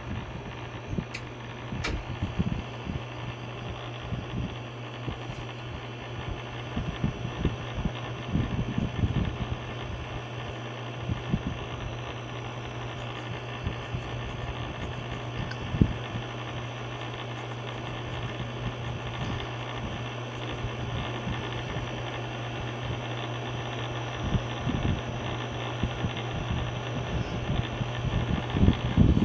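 Clip-on mini ceiling fan and air conditioner running together: a steady low hum over a constant whooshing hiss, with scattered low thumps.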